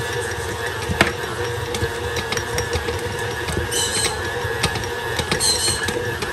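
KitchenAid stand mixer running with its dough hook kneading a stiff whole-wheat dough in the stainless steel bowl: a steady motor hum with irregular knocks, the sharpest about a second in, as the dough is just starting to clump together.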